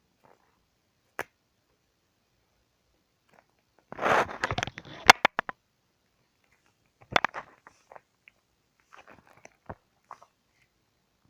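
Soft slime squelching and crackling under bare feet as they press into it. A dense burst of sticky pops comes about four seconds in, another cluster around seven seconds, then scattered small pops. The slime is too runny and sticks to the feet.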